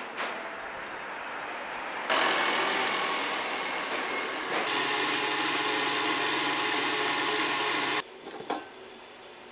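A motor-driven machine running with a steady hum and hiss, getting louder in two sudden steps, then cutting off abruptly near the end. A few light clicks follow.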